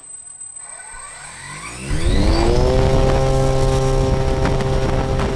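Electric aircraft motor of about 1.2 kW spinning up a large propeller: a whine rises in pitch over about two seconds, then holds a steady high pitch with a strong rush of propeller wash.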